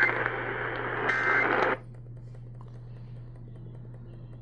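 Emergency Alert System end-of-message data bursts over AM radio static: a short burst right at the start and another about a second in. The radio audio then cuts off suddenly just under two seconds in, leaving a low steady hum.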